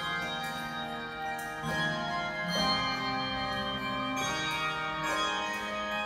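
A handbell choir playing a slow melody on brass handbells. Chords are struck every second or so, and each rings on with a long sustain under the next.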